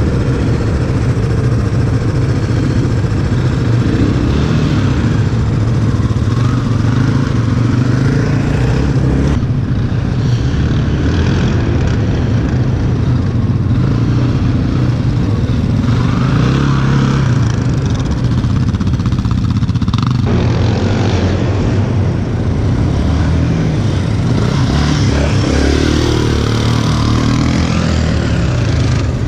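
Quad (ATV) engine running hard during off-road riding, its revs rising and falling. The sound changes abruptly about nine seconds and again about twenty seconds in.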